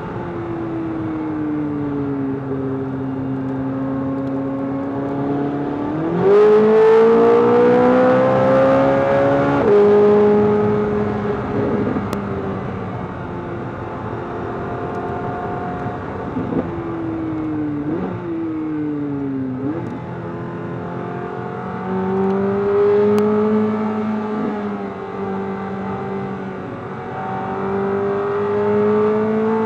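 2024 Corvette C8 Z06's 5.5-litre flat-plane-crank V8 being driven hard on track: the engine note sags off the throttle, climbs sharply under full throttle about six seconds in and falls as the throttle is lifted. Midway it jumps up twice in quick succession as the car downshifts from fourth to second, then pulls up through the revs again in second gear near the end.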